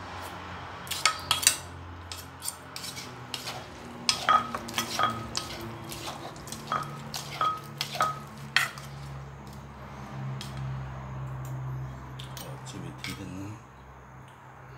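Wooden pestle knocking in a terracotta mortar while a plastic spoon scrapes and turns the som tum dressing: irregular sharp knocks, some with a brief ringing tone, through the first nine seconds or so, then quieter mixing.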